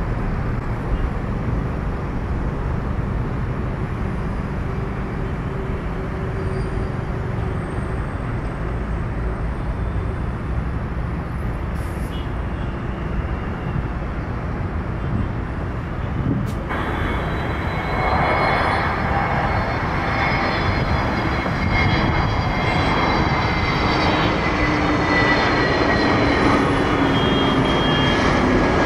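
Jet airliner engines on an Airbus A320 at takeoff power, a steady low rumble as it rolls down the wet runway and climbs away. A little over halfway through, this gives way to the engines of an Airbus A320neo on landing approach: a louder engine whine with several high tones that slowly fall in pitch.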